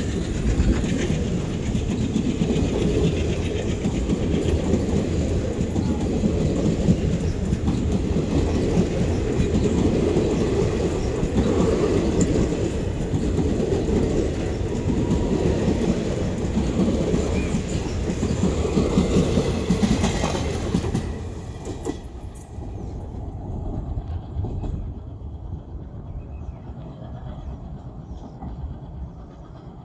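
Passenger coaches of an express train rolling past close by, wheels clattering over the rail joints. About two-thirds of the way through the last coach goes by, and the sound drops and fades as the train pulls away.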